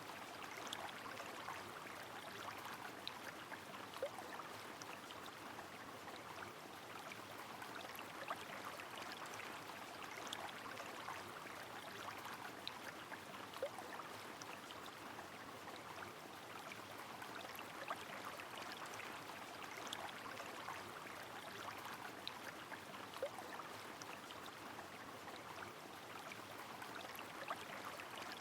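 Steady rush of a flowing river with rain falling, dotted with scattered small drop ticks.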